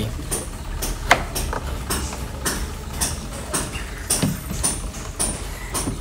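Plastic control-panel cover of a Polytron twin-tub washing machine being pushed forward and prised off its clips: irregular clicks, knocks and creaks of plastic, with a short squeak about a second in.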